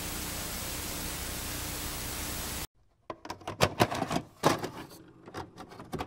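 Steady TV static hiss that cuts off suddenly a little over halfway through, followed by a quick run of mechanical clicks and clunks: a VCR's tape mechanism engaging play.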